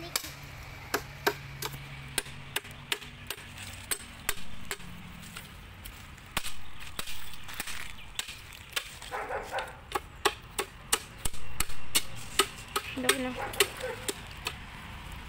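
Machete chopping into a bamboo pole: sharp, hard strikes of the blade on the cane, about two to three a second at an uneven pace.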